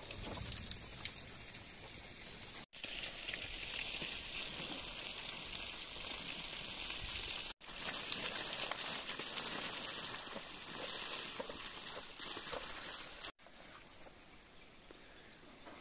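Steady rain hissing and pattering, with banana leaves rustling and crackling as they are handled. The sound breaks off abruptly three times.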